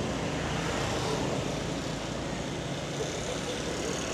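Steady rumble of traffic and road noise while travelling along a city street, with no single event standing out.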